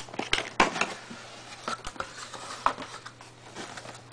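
Cardboard product box opened by hand: the lid and inner flaps scrape and rustle, with sharp cardboard clicks and knocks, the loudest in the first second.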